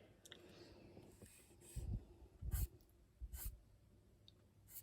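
Black fine liner pen drawing on paper: a few short, soft strokes of the nib, about two, two and a half and three and a half seconds in.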